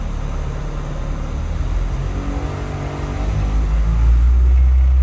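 Car engine revved up in gear, driving all four wheels of the all-wheel-drive Civic while it sits on jacks. The pitch rises about two seconds in, and from about four seconds in it settles into a louder, steady low drone.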